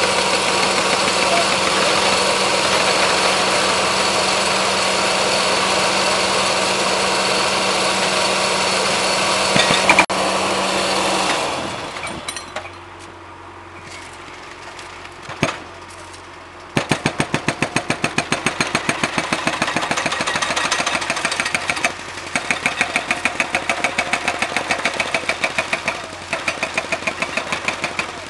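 Rail thermite welding: a gas preheating torch aimed at the mould on the rail joint runs with a loud steady roaring hiss over a hum, and is shut off about eleven seconds in. After a quieter pause, a small engine starts with a sharp onset and runs with a fast, even knocking beat.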